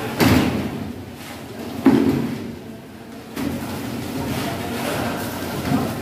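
Shovels scraping and slapping through wet concrete as it is spread by hand, with two loud scrapes in the first two seconds over steady background noise from the pour.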